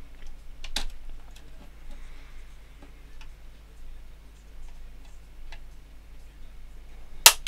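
Plastic case of a femtocell being pried along its seam with a plastic scribe: faint scattered clicks, then a single loud sharp snap near the end as a retaining clip pops open.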